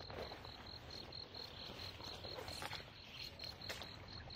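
An insect chirping steadily in a high, even pulse, about five pulses a second, with faint rustling of footsteps through grass.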